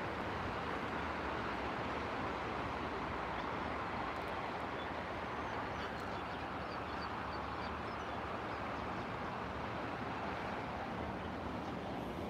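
Steady rushing seafront ambience: distant traffic on a coast road mixed with surf, with a few faint high chirps near the middle.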